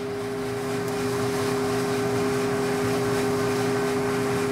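Valenta 7 fluid-bed coffee roaster running mid-roast: its loft-air blower gives a steady two-tone hum over a constant rush of air, getting slightly louder about a second in.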